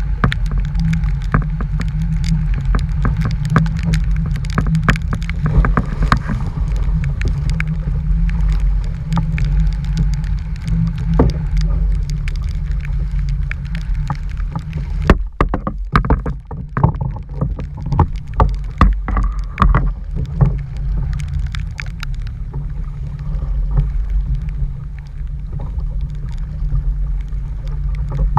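Wind buffeting the microphone as a steady low rumble, with many sharp ticks and knocks throughout.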